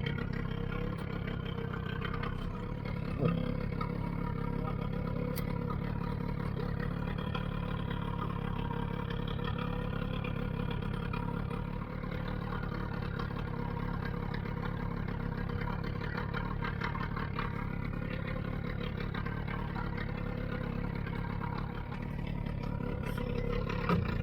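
Small outboard motor running steadily at low revs, with a brief knock about three seconds in and another near the end.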